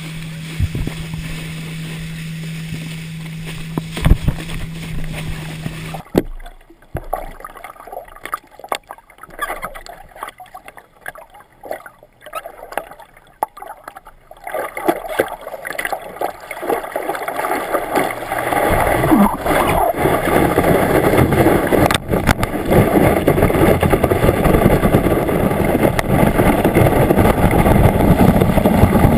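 Water rushing and splashing past a board-mounted action camera towed behind a motorboat, with the boat's engine drone for the first few seconds. It drops suddenly to quiet lapping and small knocks while the rider sits in the water. From about halfway it builds again to a loud, steady rush of spray as the rider is pulled back up.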